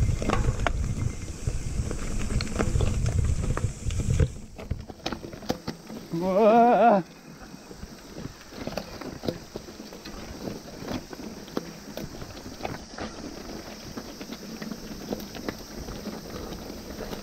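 Mountain bike ride on a trail: a heavy low rumble of wind on the chest-mounted camera for the first four seconds, then scattered rattles and clicks from the bike over rough ground. About six seconds in comes one loud, wavering vocal call about a second long.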